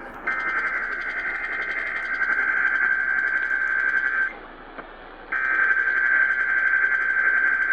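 Emergency Alert System SAME header data bursts over AM radio: a harsh, buzzing digital warble, two bursts of about four seconds each with a one-second pause between them, over radio hiss. This is the coded header that starts an EAS alert.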